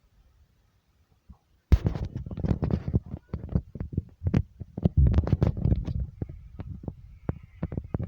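Earthquake shaking: a room and loose objects start rattling and knocking suddenly about two seconds in, over a low rumble, with dense irregular clattering that eases a little near the end.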